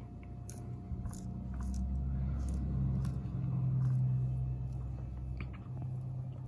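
Faint small metal clicks of a nut being spun by hand onto the countershaft sprocket of a 2009 Yamaha YZ250F, under a low hum that builds over the first couple of seconds and dies away about five and a half seconds in.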